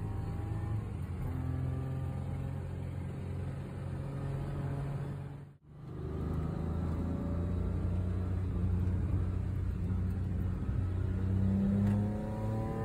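Classic car engine heard from inside the cabin, running hard on a race circuit, its note rising as it revs up through the gears. The sound cuts out for a moment about halfway through, and is loudest near the end as it revs up again.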